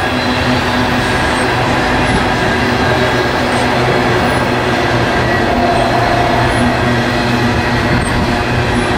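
Freight train of tank cars rolling past close by: steady rumble and rattle of steel wheels on the rails.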